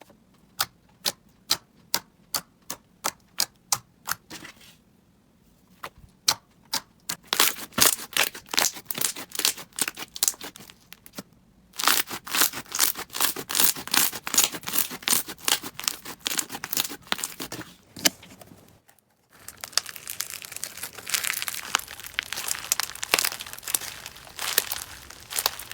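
Slime being pressed and squeezed by hand: first a steady run of sharp clicks, a little over two a second, then dense crackling and popping, broken twice by short pauses.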